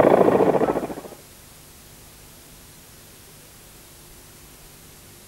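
A loud, fast-pulsing sound dies away about a second in, leaving only the steady hiss of a VHS tape recording.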